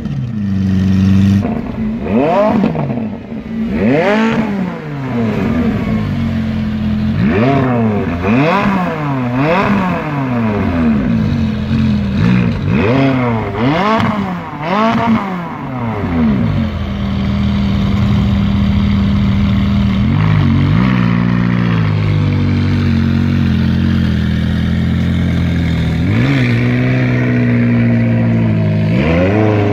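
A supercar engine revved again and again in quick blips, each rising and falling, with crackles between them. About seventeen seconds in it settles to a steady idle, then is blipped twice more near the end.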